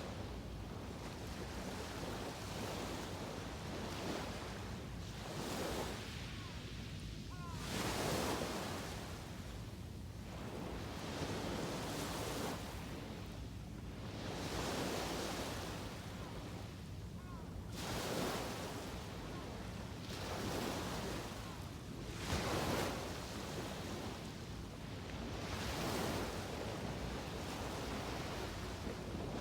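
Ocean waves breaking and washing on the shore, a fresh surge rising and falling every three to four seconds.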